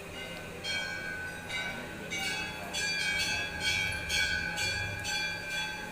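Hindu temple bells struck again and again, starting a little under a second in and coming faster, about two strikes a second, the ringing of each running into the next.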